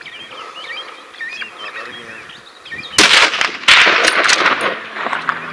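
Two loud rifle shots at a running tur, one about three seconds in and another under a second later, each followed by a ringing echo.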